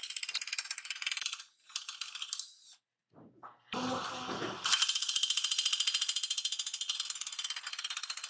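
Drill-driven nibbler attachment punching along a thin galvanized steel square tube: a rapid, even chatter of punch strokes. It stops for a moment about three seconds in, then starts again and runs louder through the second half.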